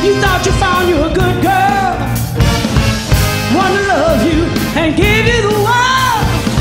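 Live soul band with a horn section playing, with a female voice singing wavering melodic phrases over it without clear words.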